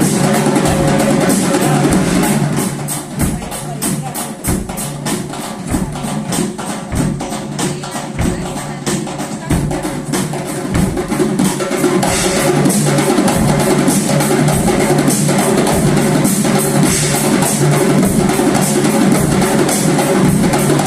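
Ensemble of drummers playing a fast, driving rhythm of many drum strokes. The playing drops softer a couple of seconds in and swells back to full loudness about halfway through.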